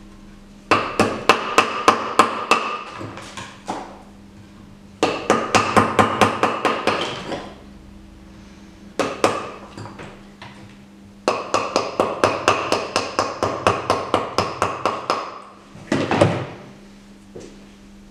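Wooden mallet striking a chisel to chip a plaster waste mold off a cast: quick runs of taps, about four or five a second, in several bursts of a few seconds separated by short pauses.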